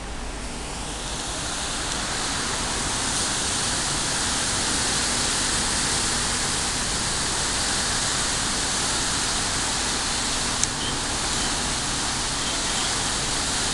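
Steady rushing of churned seawater between the hulls of two ships lying alongside, swelling over the first two seconds and then holding, with a faint low engine hum beneath and a single sharp click near the end.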